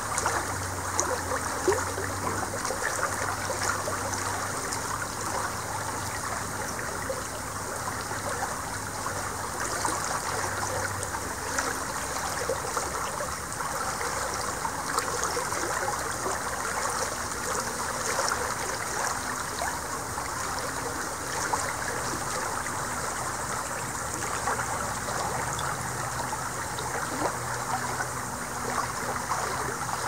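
Shallow river rippling and splashing over stones and riffles in a steady, even flow.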